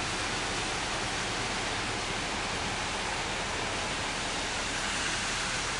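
Steady rushing hiss of heavy rain and floodwater, even throughout with no distinct knocks or splashes.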